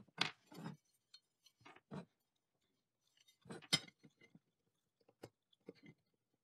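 Small metal parts and a metal speed square being handled and set down on a plywood workbench during marking out with a pencil: scattered short taps, clinks and scrapes with quiet gaps between, the loudest about a third of a second in and just before four seconds in.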